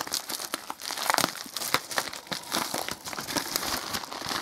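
Plastic packaging crinkling and rustling as hands handle a bubble-lined padded mailer and plastic bags of components, in a dense run of irregular crackles.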